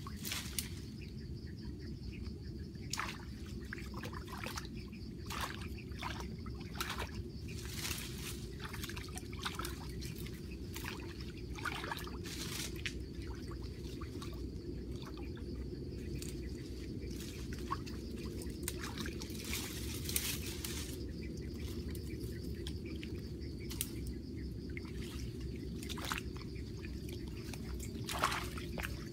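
Water splashing and sloshing in a shallow muddy stream as a person wades and works with his hands in it, with many irregular splashes and branches rustling.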